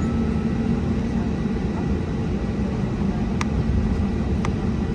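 Steady low rumble of an Airbus A320neo airliner, with two short clicks about a second apart in the second half.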